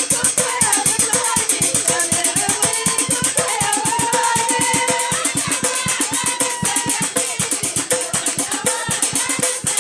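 Folk song with women singing over a quick, even beat of struck metal percussion, the naqous.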